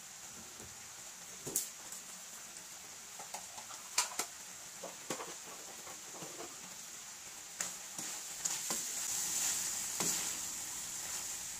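Meat in a dark sauce simmering in a wok over a gas flame, a steady sizzling hiss with scattered pops and bubbles. Near the end a wooden spatula stirs the pan, scraping, and the sizzle grows louder.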